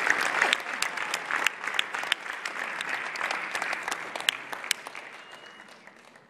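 Audience applauding, the claps dense at first and dying away steadily to near silence over about six seconds.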